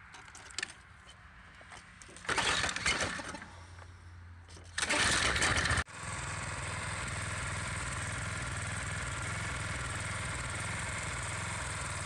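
Briggs & Stratton small engine on a pressure washer being started: two short loud bursts of cranking about two and a half seconds apart, the second catching. It then runs steadily, smooth and strong now that its carburettor bowl and fuel pickup have been cleaned.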